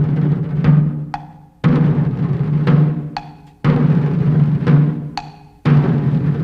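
Music with a heavy drum beat over a low held note, the pattern repeating about every two seconds.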